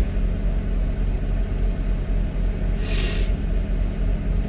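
A car engine idling while stationary, heard inside the cabin as a steady low rumble. A brief hiss cuts in about three seconds in.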